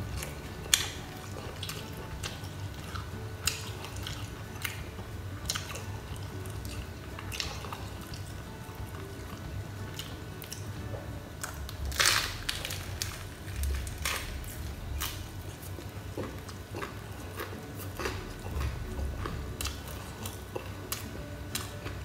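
A person eating close to the microphone: chewing and biting with scattered sharp, crisp crunches, the loudest cluster about twelve seconds in.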